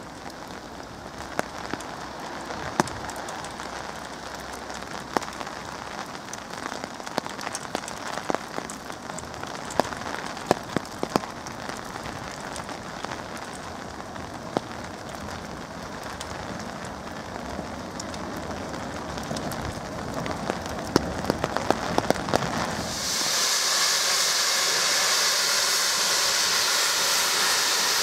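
Steady rain with scattered drops tapping sharply close by. After about twenty-three seconds a loud, steady hiss of steam from the narrow-gauge tank locomotive No. 8 Fenella starts suddenly and drowns the rain.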